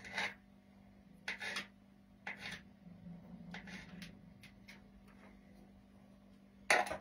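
Knife cutting boiled egg on a plastic cutting board: several short, soft strokes spread over the first few seconds. Near the end a louder clatter and scrape starts as the board is lifted to tip the egg pieces into a metal bowl.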